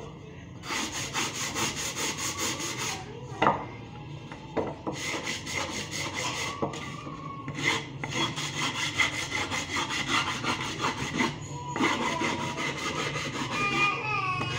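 A wooden part being hand-sanded: rapid back-and-forth rubbing strokes, about six or seven a second, in runs of a few seconds with short pauses. There is a single sharp knock of wood about three and a half seconds in.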